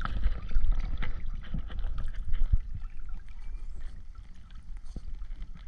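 Water sloshing and trickling, with a low rumble on the microphone and small scattered clicks; it eases off after about halfway.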